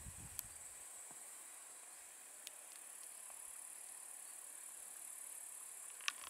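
Steady high-pitched chirring of summer insects, crickets or grasshoppers, with a few faint clicks and one sharper click near the end.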